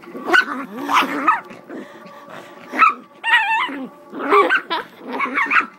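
Miniature pinscher growling and barking in about five short, snarling bursts as it play-attacks.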